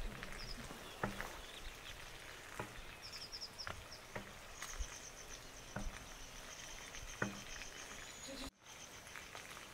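Quiet rural outdoor ambience: a high, steady insect buzz that sets in about halfway and a quick run of high chirps about three seconds in, with soft knocks every second or so. The sound briefly drops out near the end.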